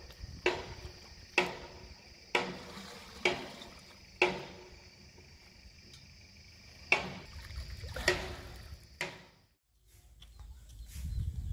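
Small metal vessel scooping water from a shallow seep pool: sharp metallic clinks that ring briefly, about once a second with a pause in the middle, over the trickle of water. The sound cuts off suddenly near the end, followed by a low rumble.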